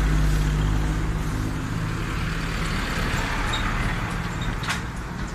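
Heavy road vehicle's engine rumbling as it passes close, fading away over the first two or three seconds, with the steady noise of city street traffic and a short click near the end.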